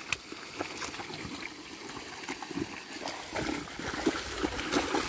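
Wet mud and water squelching and trickling as a wooden plough is dragged through a flooded paddy terrace by a yoked pair of draught animals, with a few soft knocks.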